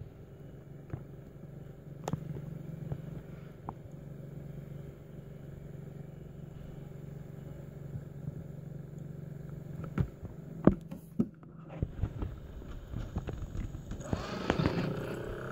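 Room noise with a steady low hum, broken by a few sharp knocks or clicks about ten to twelve seconds in. Near the end a louder sound with a wavering, bending pitch starts.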